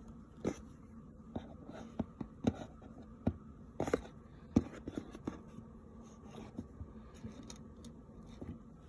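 Fidget toys being handled and sorted: irregular light clicks and taps of small objects picked up and set down, over a faint steady hum.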